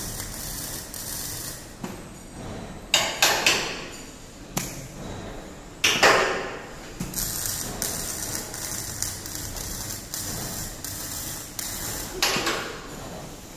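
Sharp metal clanks and knocks in a steel fabrication workshop: a cluster about three seconds in, another near four and a half seconds, the loudest about six seconds in ringing briefly, and a last one near the end, over a steady hiss.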